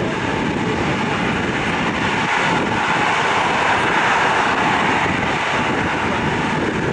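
Jet engines of taxiing aircraft running: a steady, loud rush that grows a little louder around the middle.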